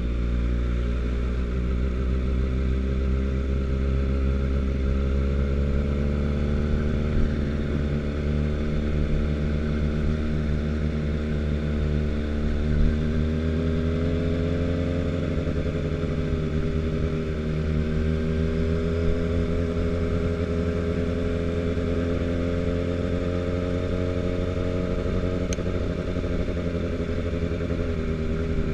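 Motorcycle engine running at low, fairly steady speed. Its pitch rises and eases a little a couple of times midway as the throttle is opened and closed, heard from on the bike.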